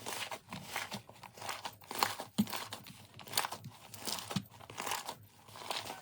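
Slime being squeezed and pressed by hand, giving an irregular run of crinkling crackles and pops, a few of them louder.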